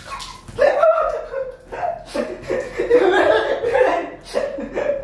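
A woman laughing in a string of short bursts.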